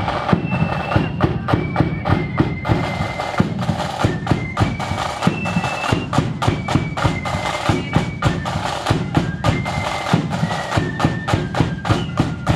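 Marching flute band playing: flutes carry a melody of held high notes over frequent snare and bass drum beats.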